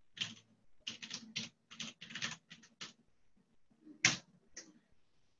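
Typing on a computer keyboard, entering a terminal command. About a dozen quick keystrokes in the first three seconds, then one louder keystroke about four seconds in and a softer one after it.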